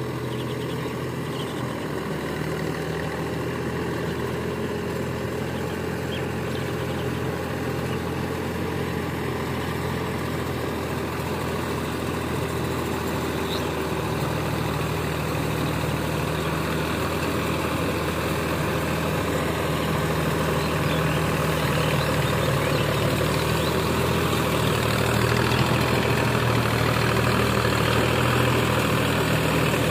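Deutz-Fahr Agrolux 50 tractor's diesel engine running steadily as it works a rear tiller through flooded paddy mud. It grows gradually louder as the tractor comes closer.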